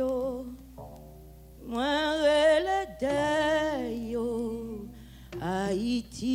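A woman singing slow phrases of long held notes with vibrato, with a double bass playing low notes underneath.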